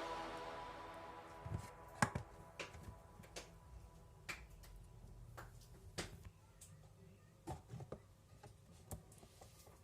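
Music dying away in the first second, then faint, scattered small clicks and taps from close-up handling, irregular, a few each second at most.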